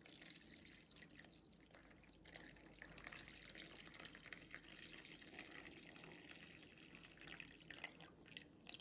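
Faint trickle of water poured from a measuring jug onto flour in a stainless steel bowl, for bread dough.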